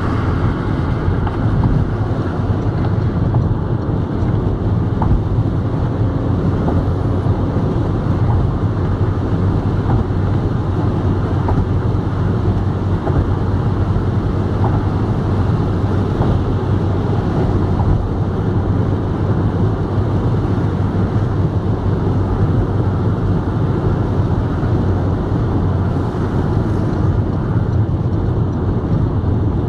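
Steady road noise inside a car's cabin at motorway speed: a low, even rumble of tyres and engine with wind noise, unchanging throughout.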